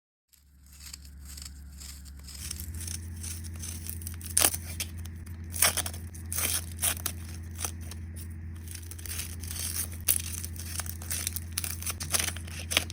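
Irregular crinkling and tearing handling noises, with several sharper crackles from about four seconds in, over a steady low hum.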